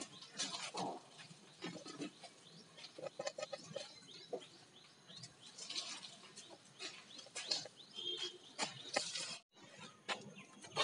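Faint scattered clicks and knocks of footsteps and handling around a metal gate and stairway, with a brief high chirp about eight seconds in.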